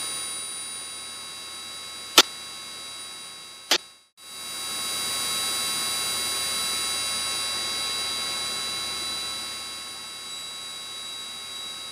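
Steady in-flight drone of a Piper Cherokee 140's engine and cabin, heard through the headset intercom feed, with a thin high electrical whine over it. Two sharp clicks come in the first few seconds, then the sound cuts out briefly and returns louder, fading slowly afterwards.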